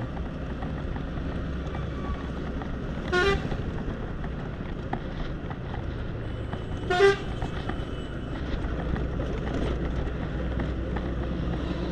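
Two short vehicle-horn toots, one about three seconds in and one about seven seconds in, over a steady low rumble of motorcycle and road traffic.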